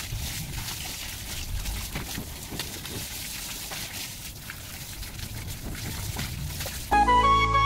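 Water spraying from a hose onto new brick walls, splashing and pattering steadily. Near the end, flute music starts abruptly and is louder than the water.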